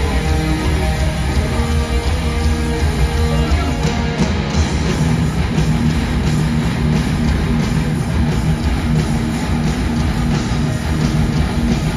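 Heavy metal band playing live through a stadium PA: a distorted electric guitar riff, with the sound filling out into the full band with drums about four seconds in.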